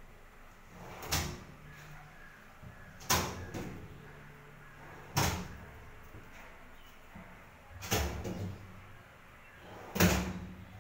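Modular kitchen base unit's drawers and cabinet door being slid open and pushed shut again and again: five sharp knocks about two seconds apart, each with a short rumble of the drawer running on its slides just before it. The last knock, near the end, is the loudest.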